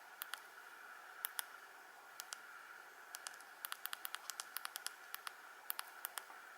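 Faint steady hiss with sharp clicks, some in pairs and a quick run of about a dozen a little past the middle: keypad button presses on a Nokia 113 mobile phone.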